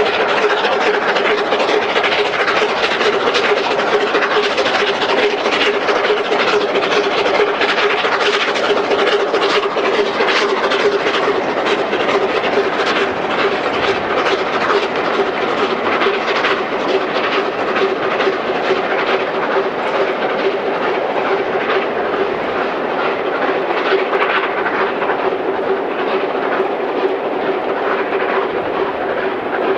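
LNER A4 Pacific 60007 'Sir Nigel Gresley' and its coaches running along the line: a steady, even train noise with many quick clicks of wheels over the rails and a steady hum underneath.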